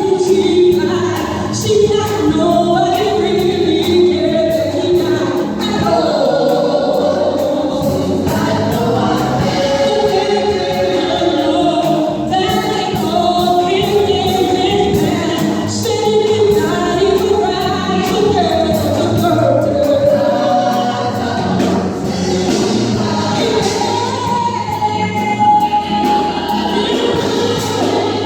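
Gospel choir singing a worship song in several voices over a steady low accompaniment.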